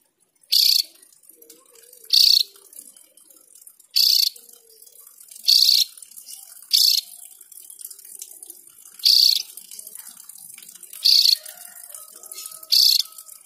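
Caged Javan grey-throated white-eye (opior jawa) giving short high calls over and over, about one every one and a half seconds, eight in all.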